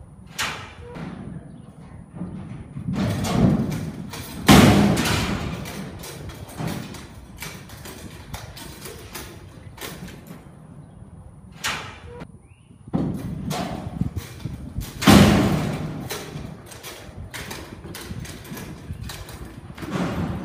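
Young bucking bull bucking loose in arena dirt: a run of irregular thuds from its hooves and body landing, with two much louder bangs about four seconds in and again near fifteen seconds.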